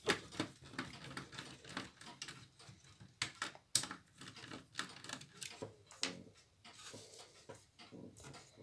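Screwdriver working a screw out of the cassette-loader cover of an opened Shivaki VCR: a run of small, irregular clicks and ticks of metal and plastic.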